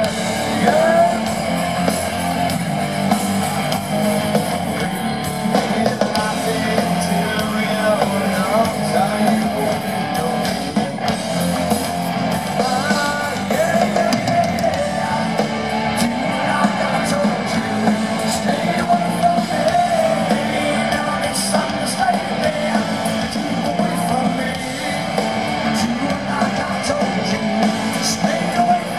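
Hard rock band playing live through a concert PA: distorted electric guitar with a wavering lead line and singing, heard from within the crowd.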